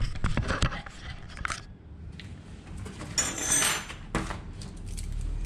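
Metal tools being picked up and handled on a desk as a folding multi-tool is fetched: scattered light clicks, a short metallic jingle about three seconds in, and a sharp click a second later.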